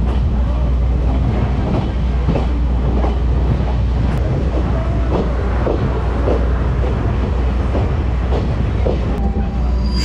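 Kominato Railway Boso Satoyama Torokko trolley train running along the line, heard from the open car: a steady low rumble with irregular clacks and knocks from the wheels on the rails.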